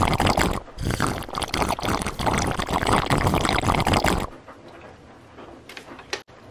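Water gurgling and sloshing in a plastic bottle as a person drinks from it in two long draughts with a short break between, stopping about four seconds in; a few faint clicks follow.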